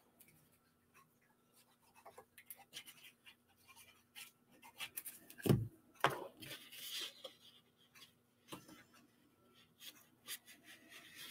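Paper being handled: faint rubbing and small clicks as a strip of patterned paper is glued and pressed onto cardstock, with one dull thump on the work surface about halfway through.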